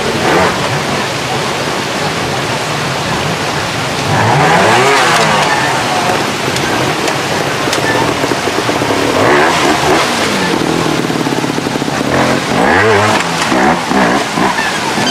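Trials motorcycle engine revving in repeated short bursts, rising and falling in pitch several times, over the steady rush of a rocky stream.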